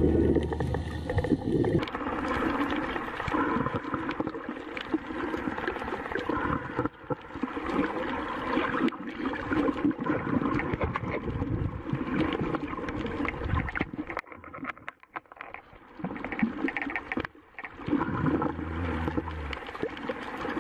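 Background music ends about two seconds in. Then comes muffled underwater sound picked up by a diver's camera: an uneven rushing and gurgling, with many small crackling clicks and a brief quieter stretch near the middle-to-late part.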